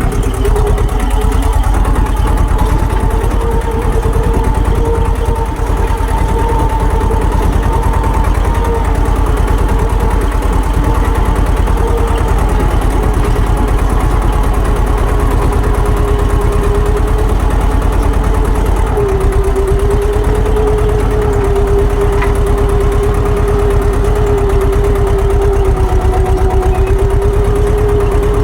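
Tractor engine running steadily with an even hum, its pitch dipping slightly about two-thirds of the way through.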